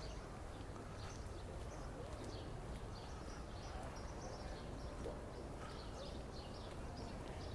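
Outdoor park ambience: small birds giving short, high chirps again and again over a steady low background rumble.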